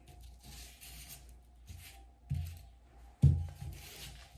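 Handling noise as brake pedals are moved about and laid down on a work surface: light rustling and two dull knocks, the second and louder about three seconds in.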